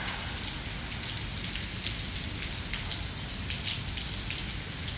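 Heavy rain falling steadily on wet pavement, a continuous hiss with many small, sharper drop hits scattered through it.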